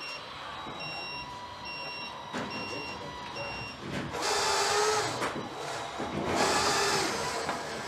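Scania R620 8x8 RC model truck's sound module tipping the body: four short warning beeps about a second apart, then two louder bursts of truck sound, each about a second long.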